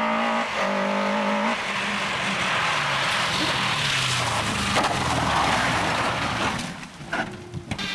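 Rally car engine held at high revs, then a loud rush of tyre noise takes over from about a second and a half in, with the engine note dropping underneath. Near the end the sound dips and crackles briefly.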